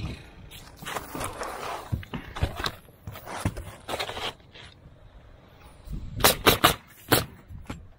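Asphalt shingles handled and scraped across the roof deck, then a pneumatic coil roofing nailer firing several shots in quick succession a little past six seconds in, nailing a shingle down.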